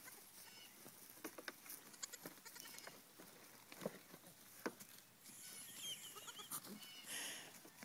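Miniature goat kids hopping on and around a plastic hay feeder, heard as faint scattered taps and knocks with hay rustling. A few short high kid bleats come about six seconds in.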